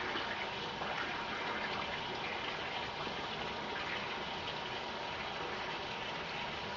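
Water tap running steadily with a continuous even rush.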